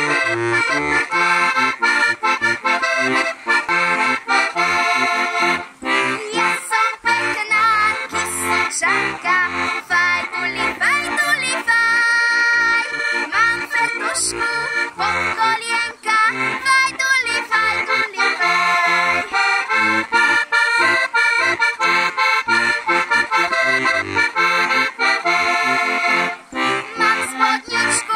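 Diatonic button accordion (heligónka) playing a Slovak folk tune, its melody over a steady pattern of bass notes and chords, with no singing yet.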